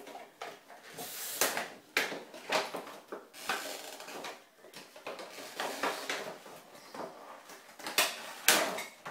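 Cardboard box holding a set of glass oil bottles being opened and handled: flaps and packaging scraping and rustling in irregular strokes, with the sharpest knocks near the end.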